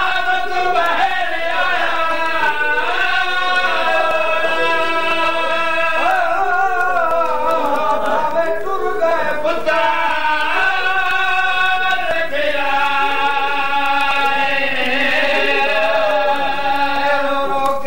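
Men's voices singing a lament together in long, held notes that slide up and down in pitch: the sung verses of a masaib recitation, the zakir joined at the microphone by his accompanying singers.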